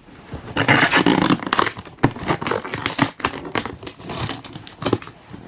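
Packaging being torn open and crinkled: a run of loud, scratchy rustling with sharp clicks, loudest in the first second and a half.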